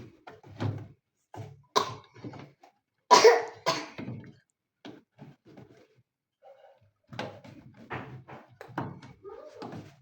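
Hands working the rubber door gasket of an automatic washing machine: irregular thunks and rubbing, loudest about three seconds in, with a short pause around the middle.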